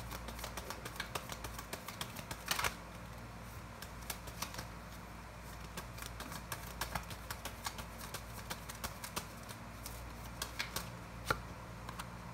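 Tarot cards being handled and shuffled: a long run of light clicks and flicks, with a louder burst about two and a half seconds in. A steady low hum runs underneath.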